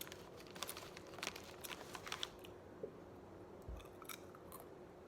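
A person chewing potato chips close to the microphone: a run of crisp crunches through the first two seconds or so, then a few fainter crunches about four seconds in.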